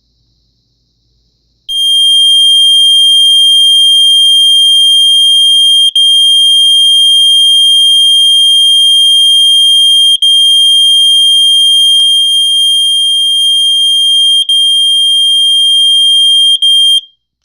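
ESL smoke detector's built-in piezo sounder alarming on test: one loud, steady high-pitched tone that starts about two seconds in, dips out briefly a few times and cuts off near the end.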